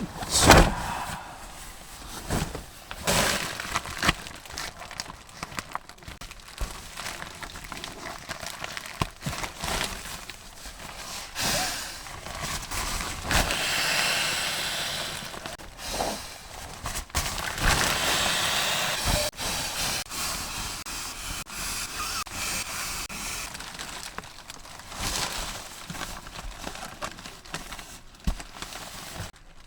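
Camping bedding and gear being handled: irregular rustling, clicks and knocks, with two stretches of steady hiss of a few seconds each in the middle.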